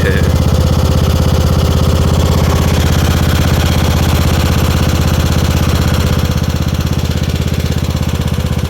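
A small vehicle engine running steadily close by with an even, rapid pulse, easing off a little in level near the end.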